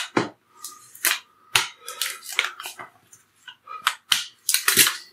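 Rolling pin rolling yeast dough thin over a table with spilled sugar on it: the sugar grains crackle and crunch under the pin in a run of sharp, uneven crunches.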